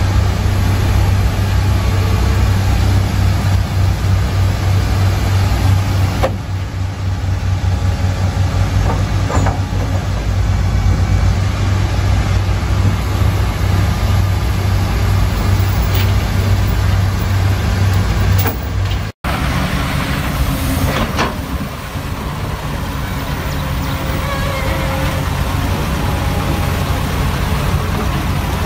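Komatsu hydraulic excavator's diesel engine running steadily with a strong low hum while the boom moves. After an abrupt cut about two-thirds in, an excavator engine works under load as the bucket dumps soil into a dump truck, with a few knocks.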